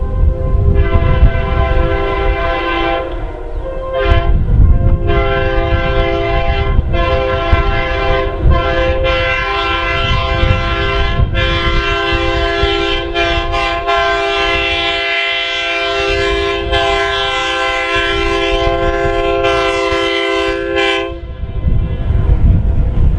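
Locomotive multi-chime air horns blowing one long held chord of several steady notes, dipping briefly about four seconds in, then cutting off near the end.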